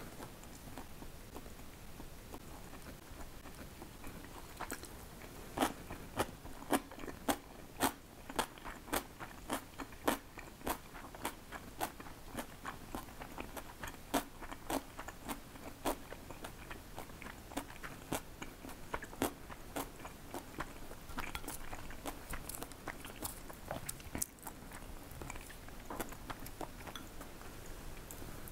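A person chewing crunchy food close to the microphone: a steady run of crisp crunches about two a second, thinning out later.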